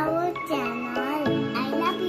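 Background music with bell-like, tinkling held notes, under a young girl's voice that glides up and down in drawn-out sounds.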